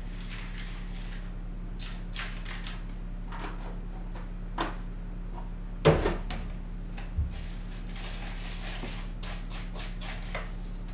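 Milk pouring from a plastic gallon jug into a stainless steel bowl of cereal, then the jug set down on the wooden table with a knock about six seconds in, the loudest sound; a spoon then clinks and scrapes in the metal bowl. A steady low electrical hum runs underneath.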